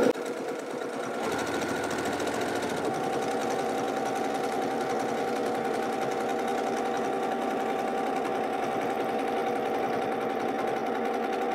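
Domestic sewing machine running steadily at speed, its needle stitching rapidly through a quilt sandwich as the fabric is moved by hand in free-motion quilting.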